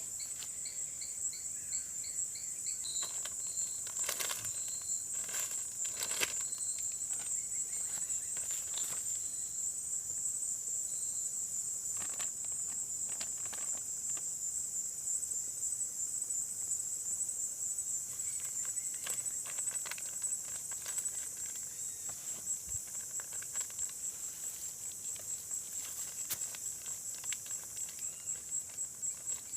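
Night insects chirring in one steady high-pitched trill, with a second pulsing chirp early on. Scattered light clicks and knocks sound over it.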